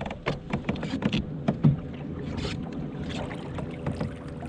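Irregular knocks and clatter on a fishing kayak, over a faint steady hum, with the loudest knock about one and a half seconds in.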